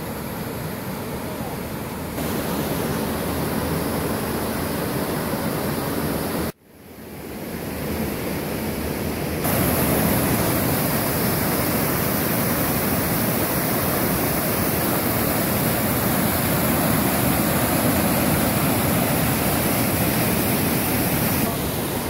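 Steady rushing of water pouring over rock cascades of a waterfall. The sound cuts out abruptly about six and a half seconds in, swells back, and grows louder from about nine seconds in.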